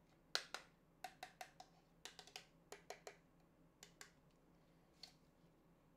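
Light clicks and taps from hands handling a metal-bodied LED tube light, about fifteen in the first four seconds, then a single one a little after five seconds.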